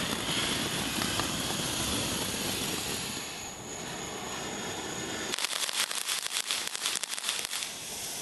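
Ground fountain firework spraying sparks with a steady rushing hiss. About five seconds in, the hiss gives way to rapid dense crackling.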